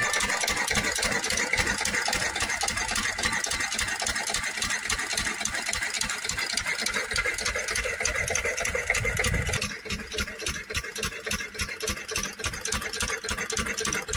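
Single-cylinder stationary diesel engine running a belt-driven irrigation water pump, a steady rapid chugging of its firing strokes. It becomes somewhat quieter about ten seconds in.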